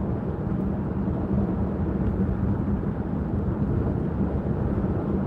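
Steady low rumble of a car on the move, heard inside the cabin: engine and tyre-on-road noise with a constant low hum.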